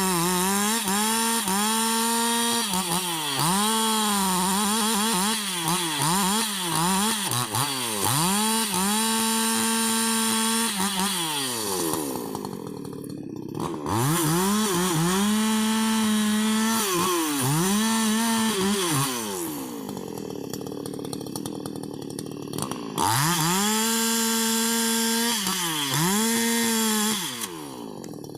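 Husqvarna 288 XP two-stroke chainsaw running at full throttle through rubber wood, its engine pitch sagging under load and recovering again and again. It drops back to idle twice, about eleven and nineteen seconds in, and again near the end.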